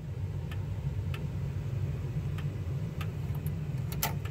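Grandfather clock's Jauch movement ticking as the pendulum swings: sharp ticks roughly every half second to second, uneven, with a louder click about four seconds in, over a steady low hum.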